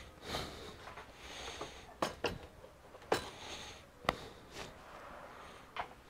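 Scattered light clicks and knocks of the opened all-in-one computer's metal chassis being handled and set down on a bench, with short soft breaths in between.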